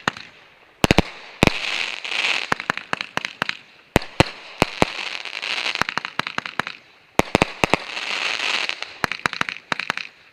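Fireworks fired from racks of tubes going off in rapid, irregular clusters of sharp bangs over swelling crackle, with short lulls between volleys.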